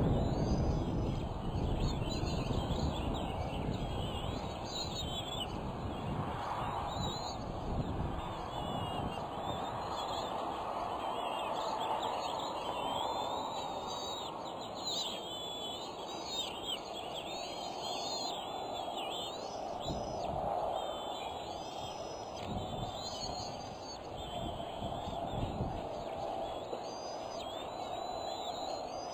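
A chorus of songbirds chirping and singing in the trees around the nest, many short rising and falling notes throughout, over a steady hiss-like background noise. A few low rumbles, the loudest near the start, break in now and then.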